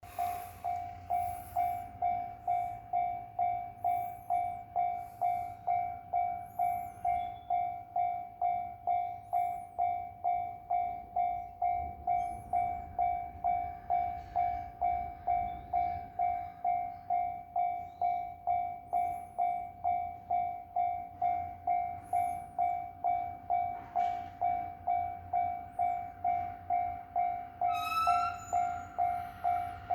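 Japanese level-crossing warning alarm ringing, an electronic tone pulsing evenly about twice a second, with the low rumble of a train beneath it. A short high tone sounds near the end.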